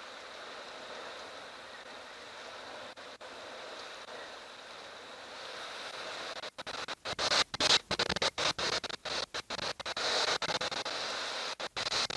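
Strong wind of a dust storm blowing, a steady rushing noise that grows louder and gustier about six seconds in, cutting in and out rapidly.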